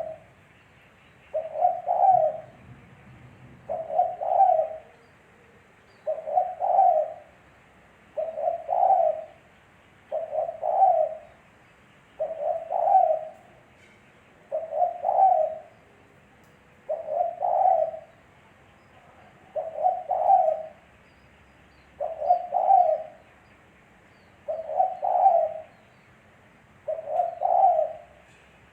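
Spotted dove (tekukur) cooing: a short, pulsed coo phrase of about a second, repeated evenly about every two seconds.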